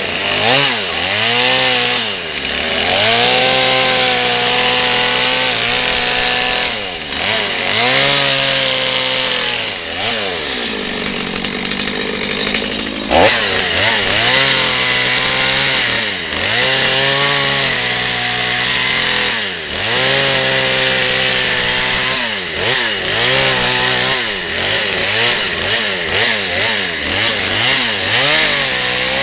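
Two-stroke chainsaw carving into a log, the engine revving up and dropping back again and again every couple of seconds as the bar cuts. It settles lower for a couple of seconds near the middle, then a sharp knock comes before it revs on.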